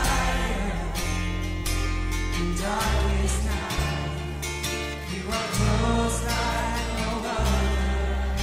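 Live worship band music: sustained bass notes and drums with cymbals, with voices singing.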